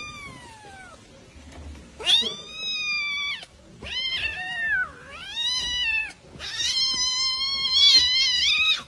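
A silver tabby cat meowing repeatedly while handled: a short falling call at the start, then four long, drawn-out high-pitched meows, the last the longest.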